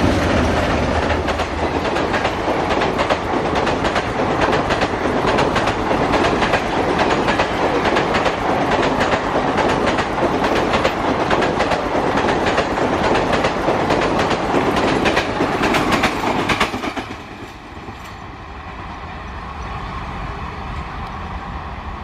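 Express passenger train coaches rushing past at speed, their wheels clattering rapidly over the rail joints. About 17 seconds in, the noise drops suddenly to a quieter, steady rumble as the train draws away.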